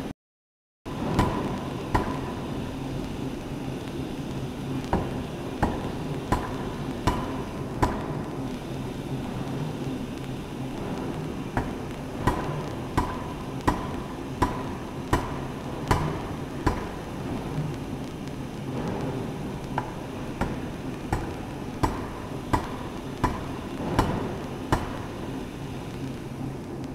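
A C41-series pneumatic forging hammer striking a red-hot workpiece in runs of repeated blows, about three every two seconds, each with a short metallic ring, over a continuous noisy shop din.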